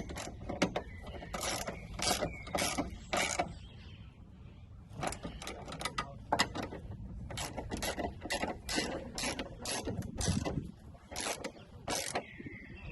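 Hand ratchet wrench clicking as the strut brace's mounting nuts on the strut tower top mount are tightened, in runs of sharp clicks with short pauses.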